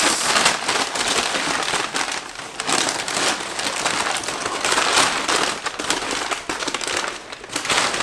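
Brown kraft packing paper crumpling and crackling as it is pulled out of a cardboard box and unwrapped by hand, a continuous run of rustles and crinkles.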